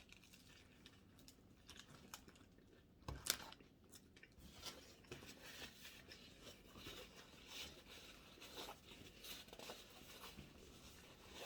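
Faint crunching and chewing of someone biting into a sub sandwich, with one sharper click about three seconds in.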